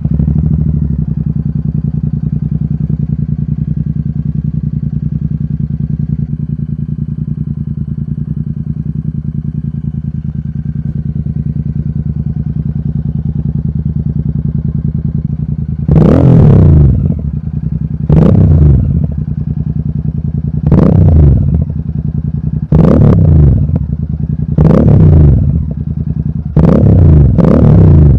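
Royal Enfield Super Meteor 650's parallel-twin engine breathing through an aftermarket Gursewak exhaust with its dB killers removed. It fires up and settles into a steady, loud idle. About sixteen seconds in it starts taking short, sharp throttle blips, about six of them, each rev dropping back quickly to idle.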